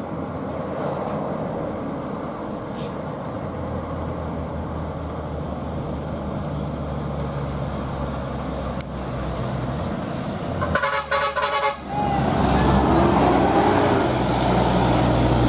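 Heavy vehicles, a bus and a truck, running on a highway with a steady engine and tyre rumble. About eleven seconds in, a vehicle horn sounds in several short blasts, followed by louder engine noise as a bus passes close by.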